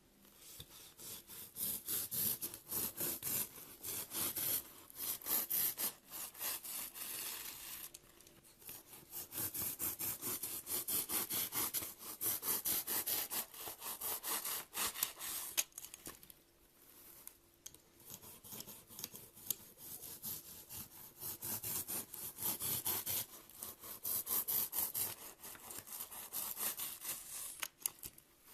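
Slime being handled: dense, rapid crackling and rubbing in bouts of a few seconds, with short quieter gaps between them.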